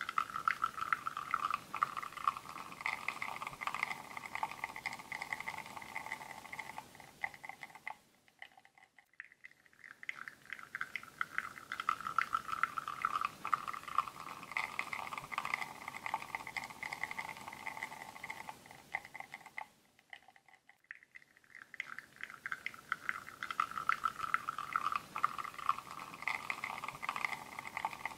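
Espresso streaming from a bottomless portafilter into a ceramic cup: a crackling, trickling pour with a ringing tone that slowly drops in pitch. The pour dies away about eight seconds in and again about twenty seconds in, then starts up again each time.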